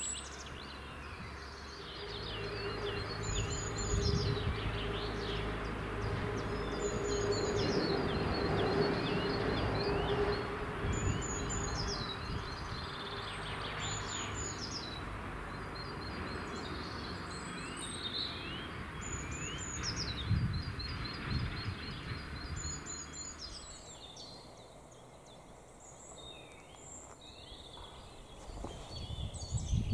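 A bird singing the same short, high phrase with falling notes every few seconds over a low outdoor rumble, which fades about three quarters of the way through.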